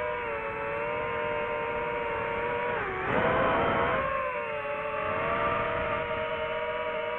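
DJI FPV drone's motors and propellers whining in flight, with the pitch dropping sharply and getting louder about three seconds in as the throttle changes, then climbing back and wavering.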